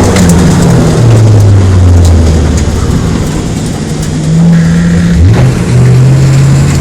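V8 engine of a drift-built BMW M3 running at low revs, its pitch falling early as it comes off the throttle, then revving up sharply once about five seconds in before holding steady.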